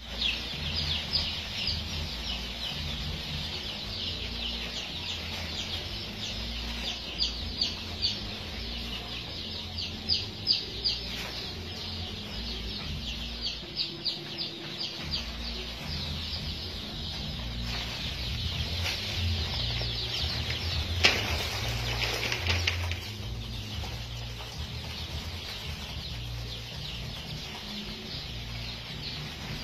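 A large brood of baby chicks peeping nonstop, many short high chirps overlapping, with a steady low rumble underneath.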